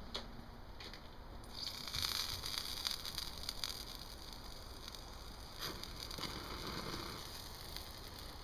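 Small fire crackling in a perforated fire basket, with bratwursts sizzling on a grill skewer just above it. A steady hiss comes in about one and a half seconds in, under scattered sharp crackles.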